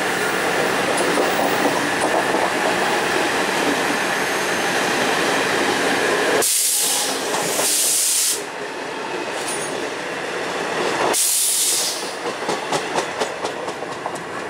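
A passenger train running past, its wheels rumbling and clattering on the rails. About six and a half seconds in come two short bursts of high hiss, with another shortly after eleven seconds. After that the wheels click over rail joints in a quick, even run.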